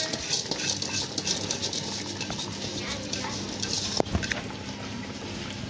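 Pot of curry water boiling hard on a stove, with a dense bubbling crackle over a steady low hum. A single sharp knock comes about four seconds in.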